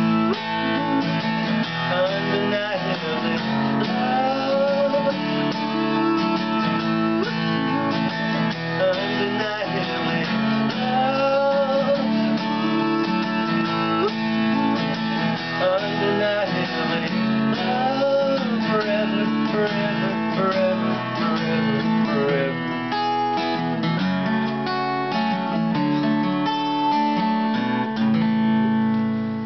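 A man singing a folk-pop song while strumming a Gibson acoustic guitar.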